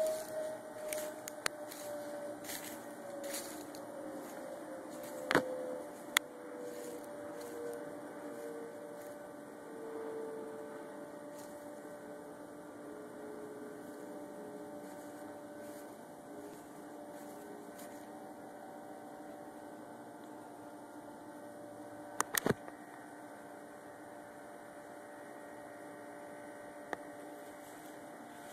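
A steady hum of several held tones, one of which slowly falls in pitch over the first dozen or so seconds. A few sharp clicks sound about five seconds in and again about twenty-two seconds in.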